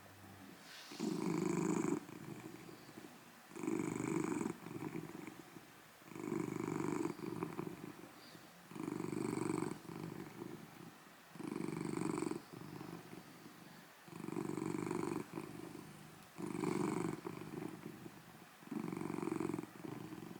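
Golden tabby Scottish Fold cat purring loudly, in a regular cycle of a louder stretch followed by a softer one, about every two and a half seconds.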